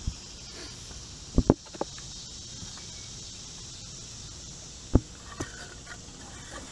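Steady high insect buzz in the background, broken by several sharp knocks and thumps close by: a quick cluster about a second and a half in and a single loud one about five seconds in.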